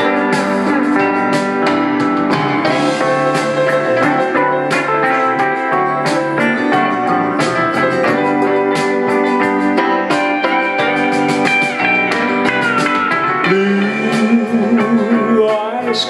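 Instrumental break of a slow country ballad backing track: guitars play the melody, with sliding steel-guitar notes.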